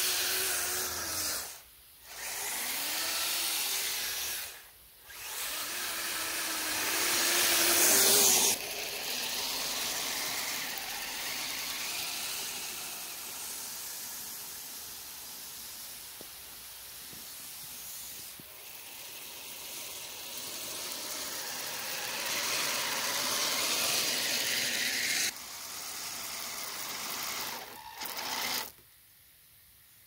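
Radio-controlled model snowcat running over snow: its electric drive whines, rising and falling in pitch through the first several seconds, under a steady hiss. The sound breaks off briefly twice early on and drops away near the end.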